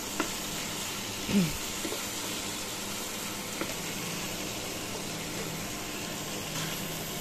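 Taro corms and hilsa fish pieces sizzling in spice paste in a nonstick frying pan, stirred with a spatula that gives a few light scrapes and taps. One short falling squeak stands out about a second and a half in.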